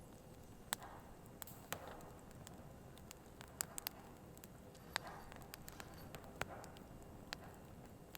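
Firewood burning, with a dozen or so sharp, irregular crackles and pops over a faint steady hiss of the flames.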